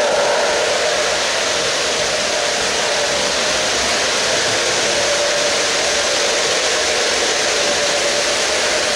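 O-gauge model freight train, pulled by an MTH RailKing Alco C628, rolling past on K-Line tubular track: a steady rolling noise of metal wheels on the steel rails with a steady hum.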